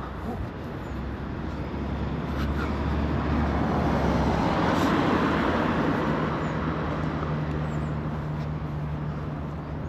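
A road vehicle passing by: its tyre and engine noise swells to a peak about halfway through and then fades, over a steady traffic hum.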